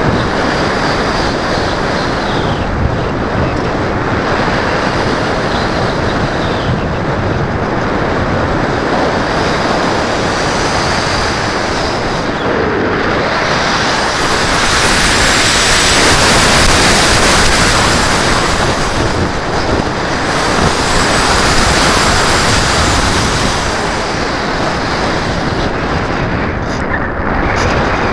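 Airflow rushing over the onboard camera of a Multiplex EasyGlider Pro RC model plane in flight, a dense steady rush with a faint high whine. It swells louder and hissier twice in the middle as the plane picks up speed in a steep descent.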